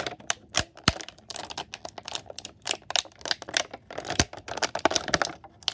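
Thin clear plastic toy packaging crinkling and crackling as it is pulled and worked off an action figure: a rapid, irregular run of sharp crackles.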